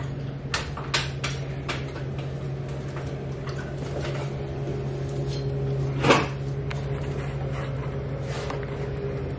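Light clicks and taps as the sheet-metal housing of a ceiling fluorescent light fixture is handled, a few in the first two seconds, then one sharp knock about six seconds in, over a steady low hum.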